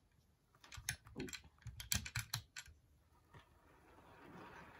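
A quick run of light clicks, then the faint steady whirring hum of an HO scale model locomotive's motor and wheels, growing louder as the locomotive runs toward the camera near the end.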